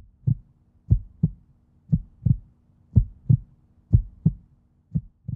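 Heartbeat sound effect: pairs of low thumps, about one pair a second, over a faint low hum, cutting off suddenly at the end.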